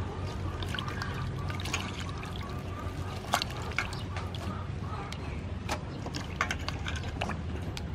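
Hands rinsing fresh herbs, chilies and shallots in a steel bowl of water: splashing and trickling, with many short sharp splashes as the greens are swished about.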